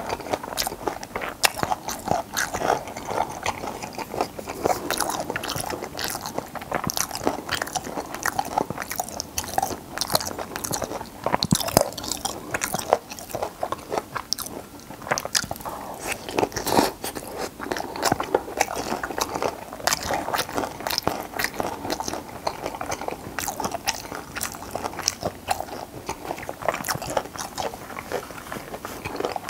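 Close-miked chewing of steamed stingray, full of irregular crunches as the fish and its soft cartilage bones are bitten through, with wet mouth sounds.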